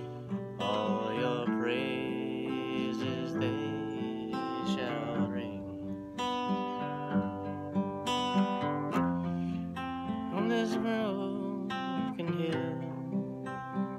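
Acoustic guitar played as an instrumental passage between sung verses, its notes ringing over a steady, even pulse.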